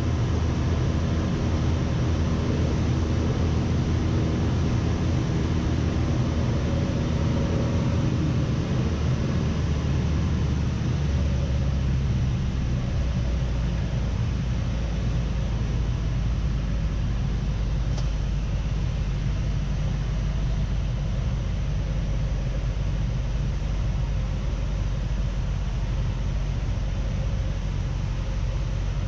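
Piper Cherokee PA-28-150's Lycoming O-320 four-cylinder engine and propeller droning steadily, heard inside the cabin. About ten seconds in, the engine note drops lower and a little quieter as power is pulled back.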